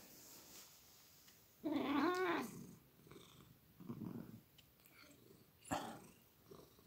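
Tabby cat meowing: one long, wavering meow about two seconds in, then a shorter, lower call around four seconds, and a brief sharp sound near the end.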